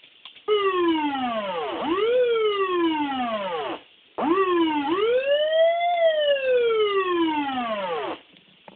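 SAP-50FBLK electronic siren amplifier sounding two separate siren calls, each about four seconds long: the pitch falls, swoops back up and then falls away again, the second call climbing higher than the first. A few faint clicks come just before the first call.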